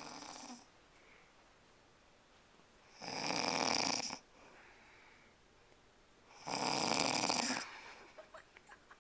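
A woman snoring in her sleep: a fainter snore right at the start, then two loud snores about a second long each, some three and a half seconds apart.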